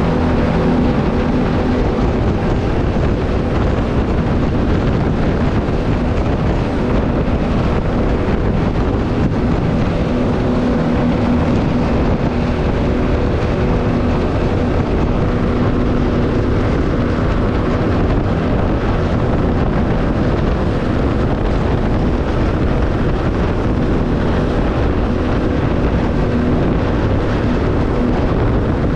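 Speedboat running at speed over open sea: a steady engine drone mixed with wind on the microphone and the rush of spray off the hull.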